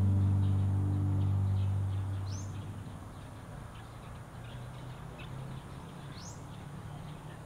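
A low sustained music chord fading out over the first two seconds or so, leaving an outdoor ambience of birds chirping, with two rising whistled calls about four seconds apart.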